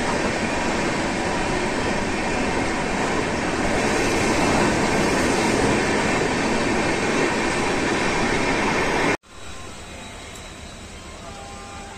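A train running on the rails: a loud, steady rushing rumble. About nine seconds in it cuts off abruptly, leaving a much quieter steady hum with faint high tones.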